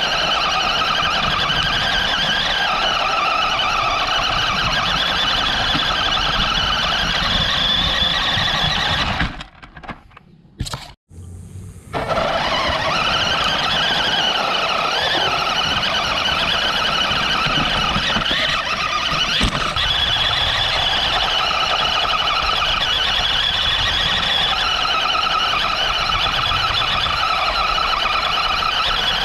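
RC car's motor and gears whining, the pitch rising and falling with the throttle, over the crunch of its tyres on loose gravel. The sound drops out for about two seconds near 10 s.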